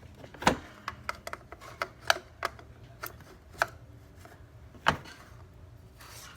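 About ten irregular sharp clicks and knocks, the loudest about half a second in, as the oil filter housing cap on top of a Mercedes-Benz E350 engine is worked loose and lifted off by hand and tool.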